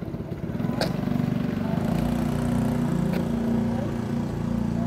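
A motor vehicle's engine running steadily, strengthening about a second in, with a couple of faint clicks.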